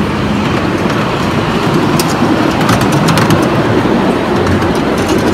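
Steady rumble of a moving vehicle, with a cluster of clicks and rattles about two to three seconds in.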